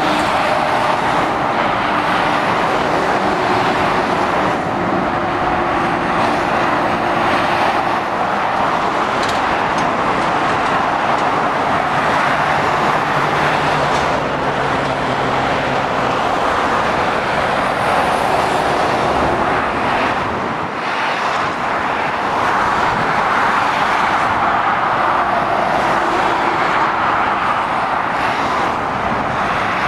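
Steady road traffic on a dual carriageway: tyre noise and the diesel engines of lorries and cars passing close below. One lorry engine's drone stands out for a few seconds near the middle.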